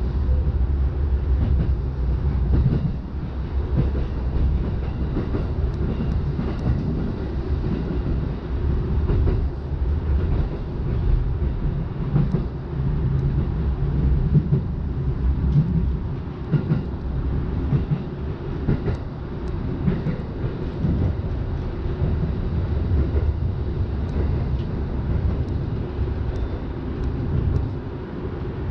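Electric commuter train running on the rails, heard from inside the car: a steady low rumble of wheels and running gear with occasional light knocks. It crosses a steel truss bridge at first.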